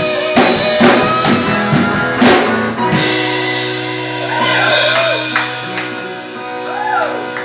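Live rock jam on drum kit, electric guitar and acoustic guitar. The drums stop about three seconds in, leaving a held chord ringing with a few sliding notes over it.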